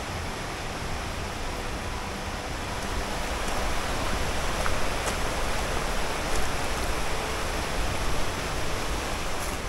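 Mountain river rushing over rocks in a steady roar of water, growing louder about three seconds in.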